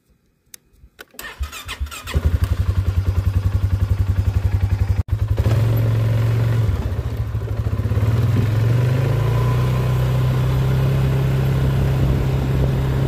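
Polaris ATV engine started with the key: a few clicks, then it catches about two seconds in and idles with an even pulsing beat. After a brief dropout about five seconds in it runs steadily, its pitch rising as the quad speeds up and then holding.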